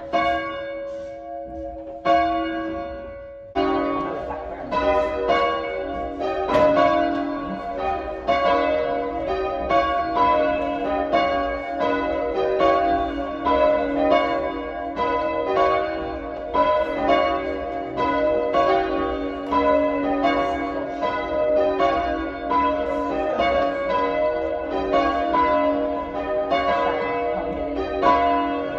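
A ring of three church bells (tenor 6-0-6 in B) rung full circle by hand, each bell striking in turn and ringing on. After a near-pause with a single strike about two seconds in, the three bells strike in a steady, even succession.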